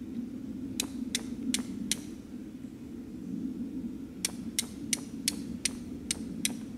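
Steel striker glancing off a flint in quick strikes, each a sharp high click: four strikes about a second in, then after a pause a run of seven, about three a second. A steady low hum runs underneath.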